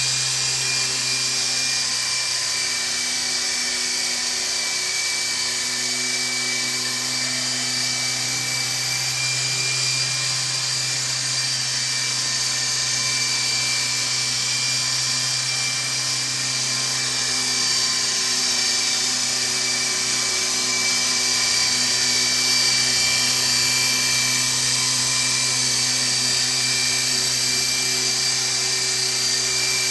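Micro electric RC helicopter flying indoors: its small motors and rotor blades give a steady, high-pitched whirring whine that grows slightly louder about two-thirds of the way through.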